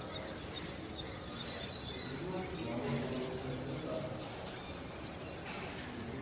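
Morning birdsong: several birds chirping and trilling in short high notes, over a steady background hum of outdoor noise.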